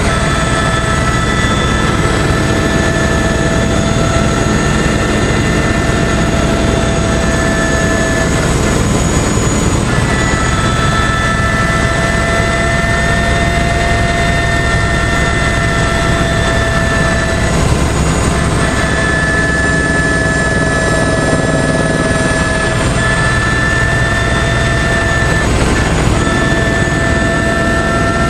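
Eurocopter AS350 B3 helicopter in cruise, heard from inside the cabin: a loud, steady rotor and turbine noise with a whine of several tones that drift slightly in pitch.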